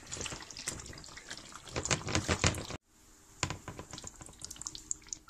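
Beef curry bubbling and sputtering in a stainless-steel pot while a wooden spatula stirs it, with a louder spell of stirring about two seconds in. After an abrupt cut the bubbling is quieter, and a sharp clink sounds as a glass pot lid is handled.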